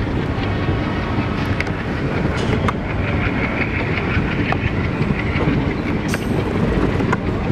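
Alco WDM-series diesel locomotive hauling a passenger train as it approaches, its engine running steadily under the rumble of the coaches, with a few sharp clicks of wheels over rail joints.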